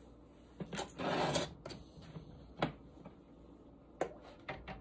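Glass canning jars and their metal lids and rings being handled on a glass cooktop: a short rasping scrape about a second in, with light knocks and clinks scattered through the rest.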